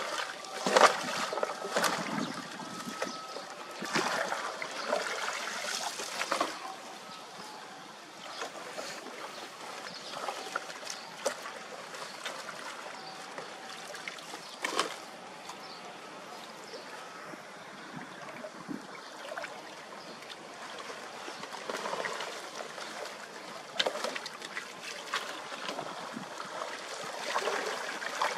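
Shallow canal water trickling and splashing as a long-handled rake is dragged through it and pulls debris off a clogged pile of brush and garbage, with scattered sharp splashes and knocks. The splashing is busiest in the first several seconds, then the flow runs on more steadily with occasional splashes.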